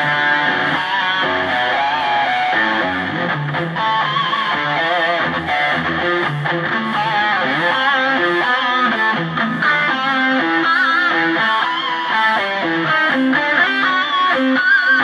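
Distorted electric guitar lead with string bends and vibrato, from a Mesa/Boogie TriAxis lead preset with delay, played back loudly through Okasumi OKS-158 speakers.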